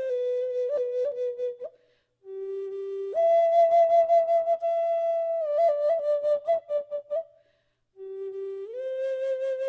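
Native American flute playing a slow solo melody: long held notes with quick grace-note flicks between them. It breaks off twice for a breath, each time coming back in on a low note that steps up to a higher held one.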